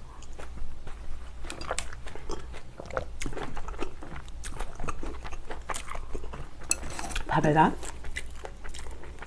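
Close-miked chewing and mouth sounds of someone eating pork kimchi stew, a run of short wet clicks and smacks. A short spoken word comes near the end.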